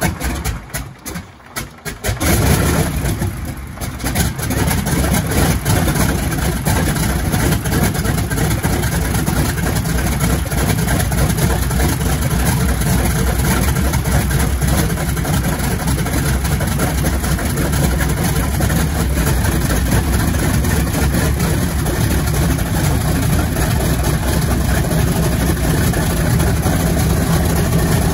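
Wright R-2600 Twin Cyclone, a 14-cylinder two-row radial aircraft engine, starting up. It fires raggedly with uneven surges for the first few seconds, catches, then runs steadily for the rest of the time.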